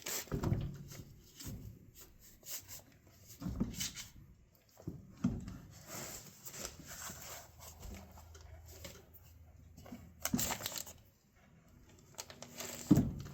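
Scattered knocks, scrapes and rustling as a clamp and a front wheel weight are handled and fitted against a tractor wheel rim, with quiet stretches in between.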